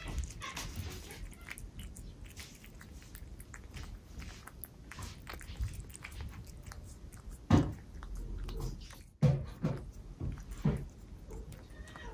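Cat lapping and chewing soft food from a ceramic bowl: a steady run of small wet licking clicks, with three louder smacks in the second half.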